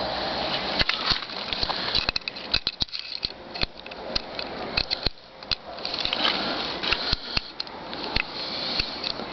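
Rustling with many irregular small clicks and knocks, the sound of things being handled close by.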